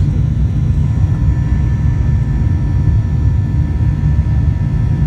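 Boeing 737-800 jet engines heard from inside the cabin with the aircraft airborne after takeoff: a steady, loud low rumble with faint, steady whine tones above it.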